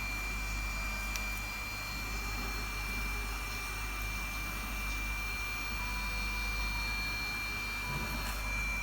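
Steady fan-like whir with a constant thin high-pitched whine over a low hum, and two faint clicks, about a second in and near the end, as the switch buttons are pressed.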